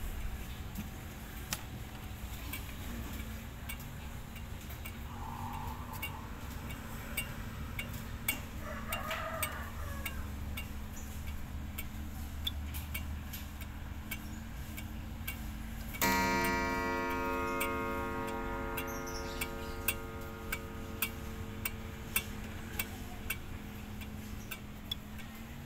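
Mauthe pendulum wall clock ticking steadily; partway through, its hammer strikes the spiral gong once for the half hour, and the gong's deep, many-toned note rings on, slowly fading.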